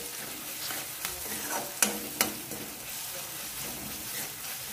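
Onion-tomato masala with spices sizzling in hot oil in a kadai while a metal spatula stirs and scrapes it, with a few sharp clinks of the spatula against the pan, the two loudest about two seconds in.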